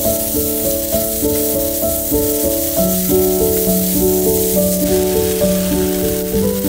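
Meat and onions sizzling in a hot frying pan as they are stir-fried, a steady hiss, under instrumental background music playing a melody of short notes.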